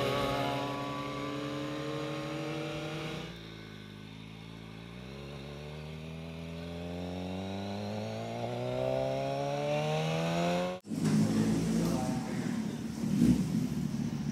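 Sport motorcycle engine heard from an on-board camera: first running at a steady, slowly easing pitch. After a cut and a quieter spell, it pulls in one long, even rise in revs as the bike accelerates. Near the end it gives way to rougher street noise with a sharp knock.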